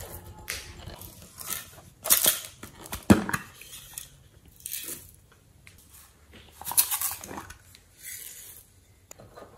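Slime being squished and stretched by hand, giving irregular sticky squelches and crackles, loudest about two to three seconds in and again about seven seconds in.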